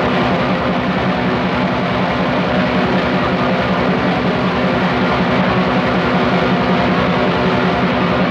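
Raw black metal recording playing without a break: a dense, steady wall of distorted guitar over fast drumming.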